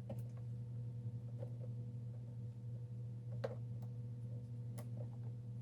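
Faint steady low hum with a few light, scattered clicks and taps, the small contact sounds of multimeter test probes being placed on the wire terminals inside the rice cooker.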